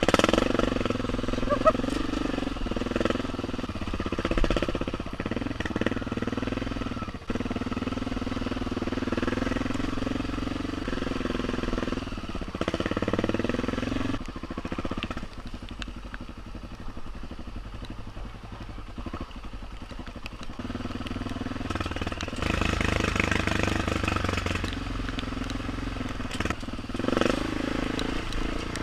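BMW F650GS motorcycle engine running under way, its pitch rising and falling as the throttle opens and closes.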